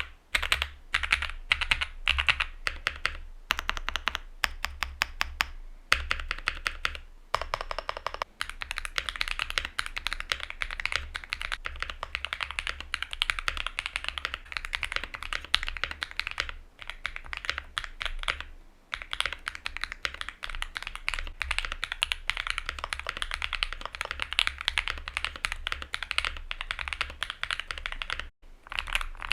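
Fast, continuous typing on a Luminkey65 custom mechanical keyboard with an FR4 plate and lubed, filmed switches, the keys clacking rapidly. The first part is NK Cream+ switches with copper inserts. After a short pause about seven seconds in, the typing continues with the Mode Obscura and NK Cream+ switches back to back.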